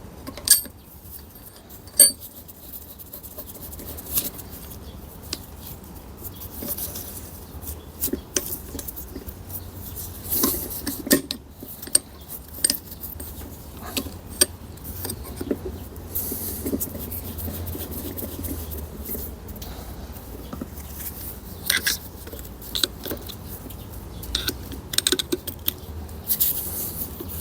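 Steel gearbox parts and tools clinking, knocking and scraping as a manual gearbox is dismantled by hand, in scattered irregular strikes, the two sharpest about half a second and two seconds in.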